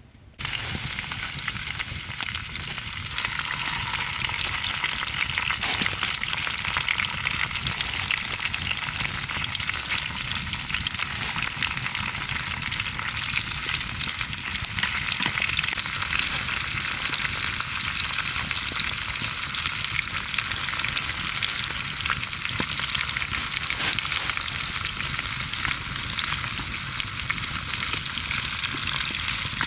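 Food frying in a pan, a steady sizzle with occasional small pops, starting abruptly about half a second in.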